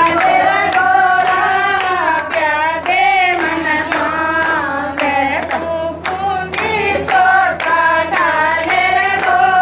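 A group of women singing a devotional song together, clapping hands along in a steady rhythm.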